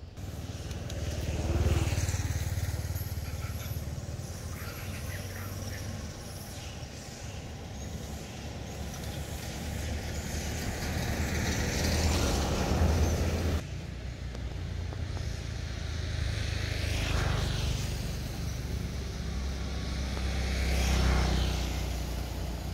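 Motor vehicles passing: a low engine rumble that swells and fades several times, breaking off abruptly a little past halfway.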